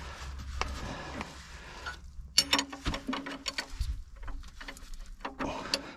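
Metal clicking and clinking of a wrench working the oil-pan drain plug loose on a John Deere 6820 tractor: a rapid, uneven run of sharp clicks starting about two seconds in.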